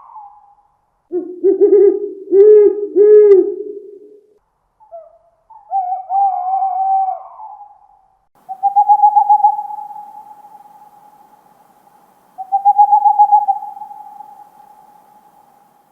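Owl hooting: a quick run of three deep hoots, then higher calls, then two long quavering hoots about four seconds apart, each trailing off slowly.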